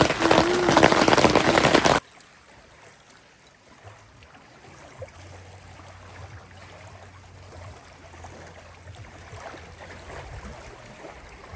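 Heavy rain pattering loudly, then an abrupt cut about two seconds in to a much quieter steady hiss with a faint low hum.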